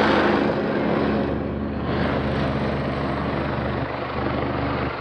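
Helicopter flying over, its steady rotor and turbine noise slowly fading as it moves away.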